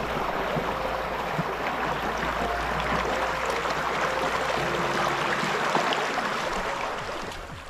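Shallow, fast stream rushing and splashing over rocks right beside the microphone, a steady dense hiss of running water that falls away near the end.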